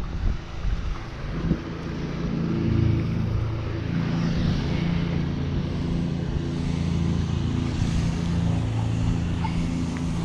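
A motor running steadily with a constant droning pitch, setting in about a second and a half in, over wind rumble on the microphone.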